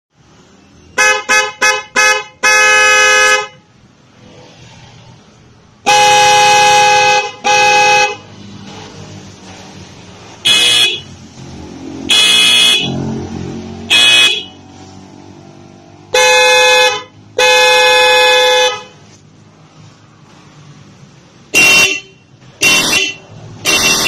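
Hella snail horns and disc horns for cars and motorcycles sounded in turn: four quick toots, then a series of horn blasts of up to about a second and a half each, switching between a lower-pitched horn and a higher, shriller one.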